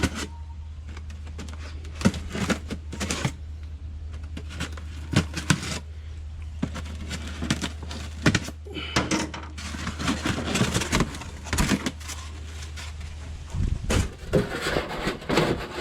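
Packaging being handled while a boxed towing mirror is unpacked: cardboard and plastic moved about, with scattered knocks and clicks and stretches of rustling. A steady low hum runs underneath.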